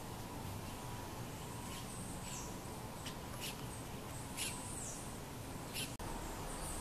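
Outdoor ambience: about half a dozen short, very high chirps, some dropping in pitch and the loudest about halfway through, over a steady low rumble and a faint steady hum.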